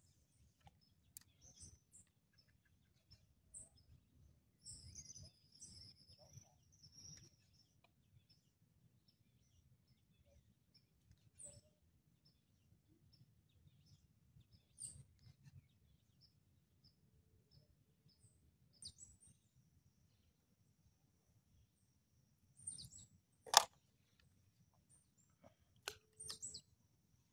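Faint bird chirps and short high ticking calls, with a thin steady high tone through the second half. A sharp knock sounds about three-quarters of the way through, followed a couple of seconds later by a few softer clicks.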